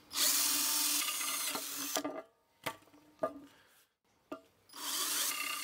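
Cordless drill running under load, boring a hole through a galvanized steel pipe seated in a plastic D-handle grip, for about two seconds. A few short knocks follow, then the drill starts boring again near the end.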